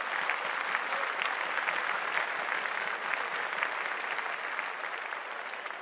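Audience applauding, a dense clapping of many hands that dies down slightly near the end.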